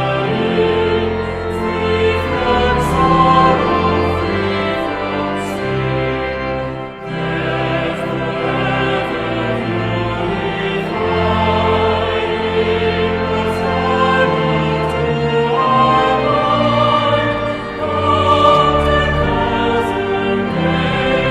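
Choral music: a choir singing with instrumental accompaniment and held bass notes, with a brief pause about seven seconds in.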